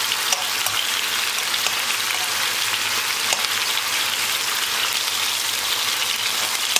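Thin slices of marinated chicken döner, cut straight from frozen, sizzling steadily in hot oil in a frying pan, with a few faint clicks as metal tongs turn the pieces.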